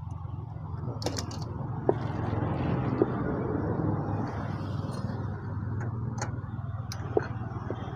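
Scattered sharp clicks and light metal knocks of hand tools working loose a motorcycle engine's water pump fittings, over a steady low hum.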